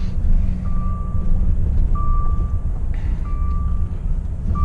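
A reversing alarm beeping, one steady single-pitched beep about every 1.3 seconds, four in all, over a lorry's low engine rumble.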